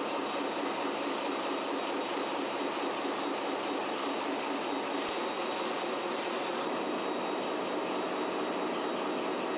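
Steady, even noise of ship engine-room machinery running, with no change in level and little deep rumble.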